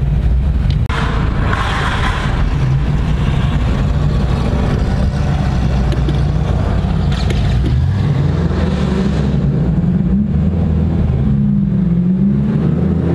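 Car engine and road noise heard from inside the cabin while driving, a steady low drone whose pitch rises and falls as the car speeds up and eases off. A short spell of louder hiss comes about a second in.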